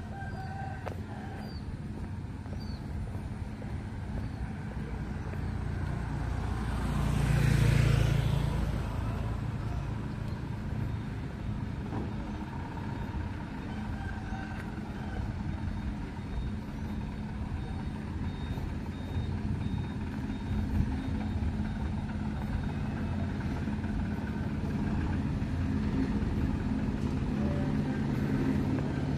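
Road traffic on a village street: a vehicle engine hums steadily throughout, and another vehicle passes close by about eight seconds in, its sound swelling and then fading.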